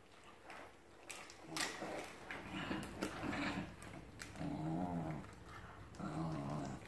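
Two dogs play-fighting, with low, rattling play growls in three bouts, the longest in the middle, and a few sharp clicks of mouthing and scuffling before them.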